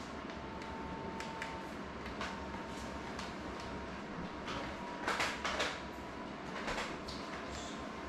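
Handling noises of gear being picked up and moved on a workbench: scattered light knocks, scrapes and rustles, a cluster of louder ones about five seconds in. A faint steady whine runs under them.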